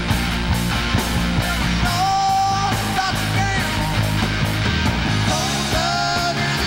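Live rock band playing: electric guitar, bass guitar and a steady drum beat, with a man singing.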